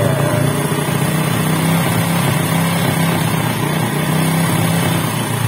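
Honda XRM125's single-cylinder four-stroke engine idling steadily at a raised idle speed. The bike starts hard and stalls at its normal idle, so the idle has been turned up to keep it running while the carburetor is adjusted.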